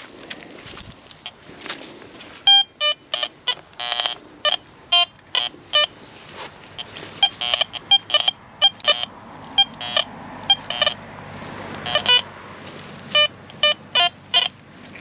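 Garrett Vortex VX9 metal detector giving short, sharp target-signal beeps as the coil is swept over the ground. The beeps come in quick pairs and small clusters, starting about two and a half seconds in.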